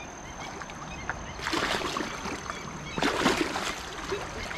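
Water sloshing and splashing in two bursts, the first about a second and a half in and the second about three seconds in, as people move across a river through the water.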